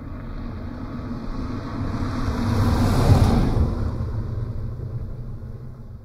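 A vehicle driving past on a road: its engine and tyre noise swell as it approaches, are loudest about three seconds in, then fade away as it moves off.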